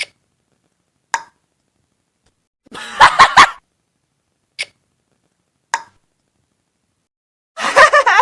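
A string of short meme sound-effect clips separated by dead silence: single brief pops, a quick cluster of sharp pulses about three seconds in, and a voice-like clip with sliding pitch starting near the end.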